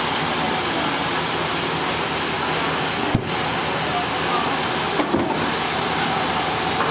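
Steady mechanical din of sawmill machinery running, with a short knock about three seconds in.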